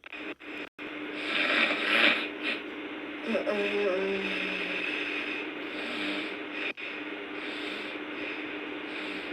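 A sleeping girl snoring, with a loud noisy breath about a second in and a short pitched sound about three and a half seconds in, over a steady low hum.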